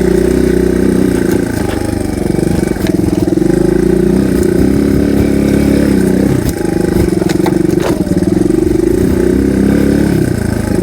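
Single-cylinder dual-sport motorcycle engine running steadily under way, easing off briefly a couple of times.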